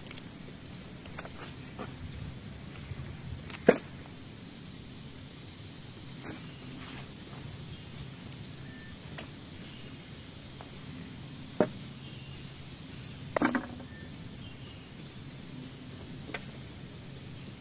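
Short high chirps of a small bird, about a dozen, at irregular intervals. A few sharp knocks of wood being handled come with them, the loudest about four seconds in.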